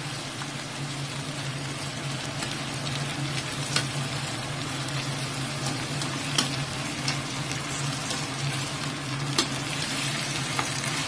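Pork chops sizzling in butter and water in a frying pan, a steady hiss broken by a few sharp clicks, with a low steady hum underneath.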